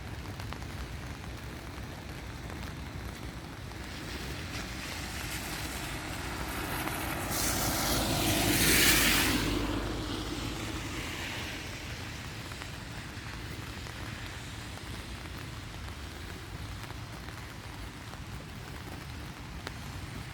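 Steady rain, with a vehicle passing on a wet road: its tyre hiss swells to a peak about nine seconds in, then fades away.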